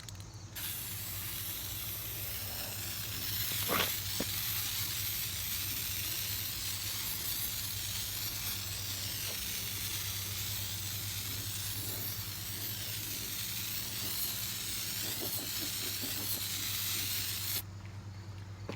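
Spray can of Rust-Oleum Aircraft Remover paint stripper spraying in one long, continuous hiss, stopping suddenly about a second before the end.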